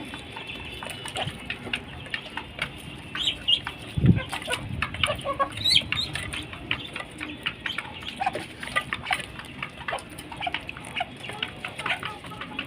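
A flock of poultry clucking and calling in many short, overlapping calls, with a single low thump about four seconds in.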